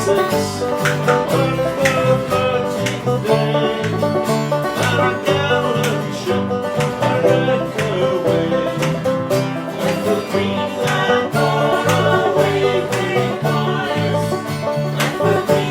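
Instrumental folk music from a band: plucked string instruments picking a tune over a steady, regular bass rhythm.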